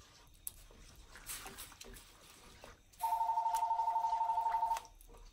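A wooden spoon faintly stirs a liquid tomato-and-broth sauce in a stainless skillet. About three seconds in, a telephone gives a two-tone electronic ring that warbles rapidly for nearly two seconds and is the loudest sound.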